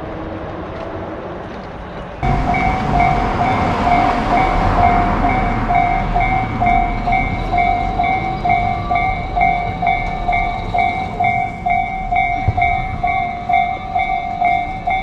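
Train rumble that cuts off abruptly about two seconds in. In its place a Japanese railroad crossing's electronic alarm bell rings a steady, repeated ding, about two strokes a second, over train noise that is loudest just after the cut.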